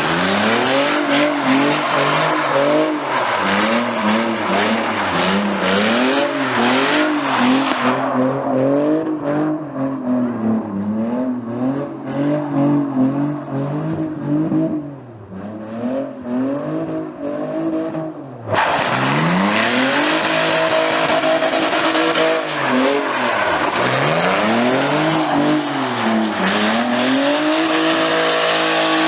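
A car engine revving up and down over and over with tyre squeal and skidding, as in a burnout or drift. The sound goes duller for about ten seconds in the middle, then turns sharp again suddenly.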